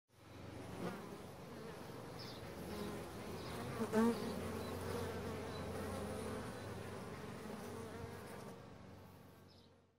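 Bees buzzing, a steady massed hum that fades in at the start and fades out near the end, with a brief louder swell about four seconds in.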